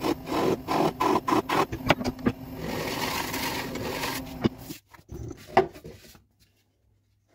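Wood lathe turning a green spalted ash bowl while a gouge cuts at its base: first in short, uneven scraping contacts over the motor hum, then a steady cutting hiss. About four and a half seconds in the cut and the motor stop, and a few knocks follow as the bowl is handled.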